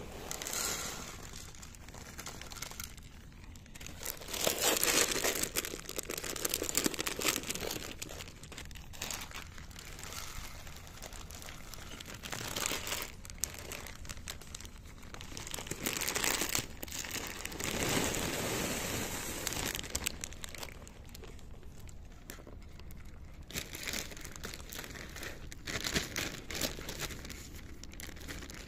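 Cats crunching dry kibble from dishes close to the microphone: an irregular crackly chewing, louder in some stretches.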